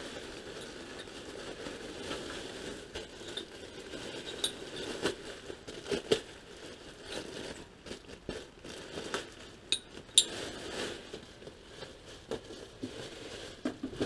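Plastic packaging rustling and crinkling while small hard parts clink and knock on a workbench during unpacking, in scattered irregular clicks with a few sharper knocks.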